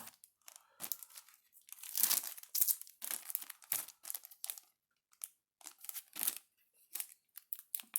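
A small sealed package being worked open by hand: the packaging crinkles and tears in irregular short bursts, with brief pauses between.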